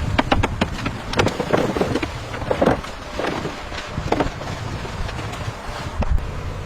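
Construction-site sounds: a quick run of knocks and clanks, some ringing briefly, over a low steady rumble. The knocks thin out after about four seconds.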